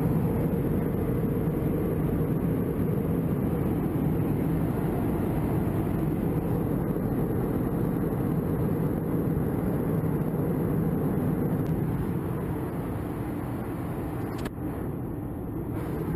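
Steady low roar of an airliner cabin in flight, from jet engines and airflow, with a single click near the end.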